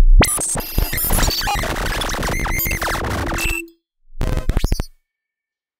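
Experimental electronic music from software synthesizer plugins: a dense, noisy clutter of clicks and glitchy tones over one steady held tone, cutting off suddenly about three and a half seconds in. After a gap of silence comes a short burst of rapid clicking tones.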